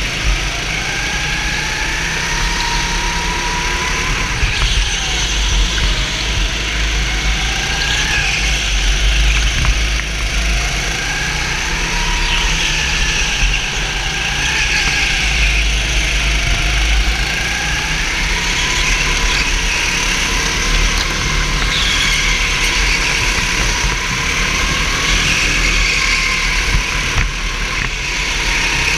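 Onboard sound of racing kart engines at race pace, the pitch repeatedly rising as the kart accelerates and falling as it lifts for the corners, over a heavy low rumble.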